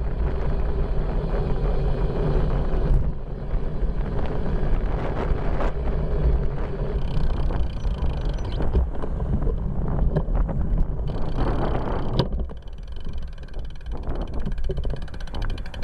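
Rumble of wind and road on a bicycle-mounted action camera's microphone while riding, with scattered sharp clicks and rattles. The sound changes abruptly about 3 s in and again about 12 s in.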